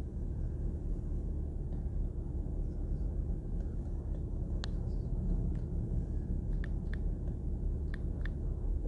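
Steady low background rumble, with a few light clicks from about halfway in: fingertip taps on a smartphone's on-screen number keypad as a verification code is typed in.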